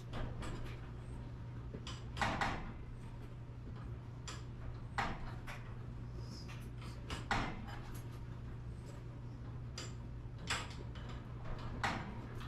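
A handful of short, sharp knocks and clanks a couple of seconds apart, from hands-on work on garage door hardware, over a steady low hum.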